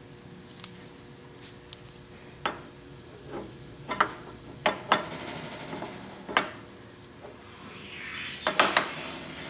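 Cast-iron compound rest of a South Bend 9-inch lathe being set onto its swivel base on the cross slide: a string of sharp metal clinks and knocks, then a sliding scrape of metal on metal near the end.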